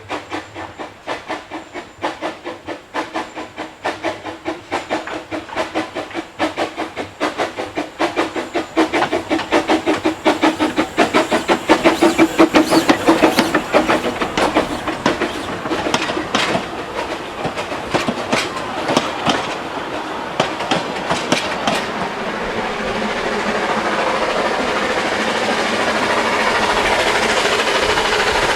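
Train running, with a rhythmic clicking over the track and a low hum. The clicks quicken and grow louder over the first half, then blend into a steadier rushing noise that swells near the end.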